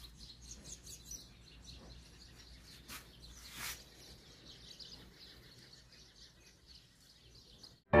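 Faint ambient background with small bird chirps, and a short noisy swish about three and a half seconds in.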